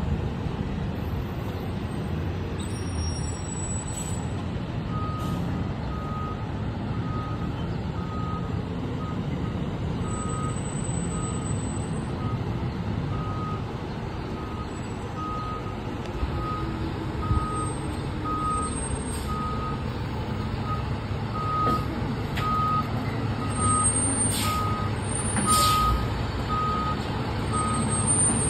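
Fire rescue truck's engine running as it reverses with a boat trailer, its reversing alarm beeping steadily at about three beeps every two seconds from about five seconds in. A brief sharp noise near the end.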